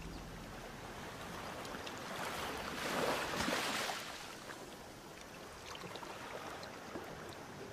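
Shallow seawater splashing and sloshing over rocks, swelling to a louder surge about three seconds in and then easing off.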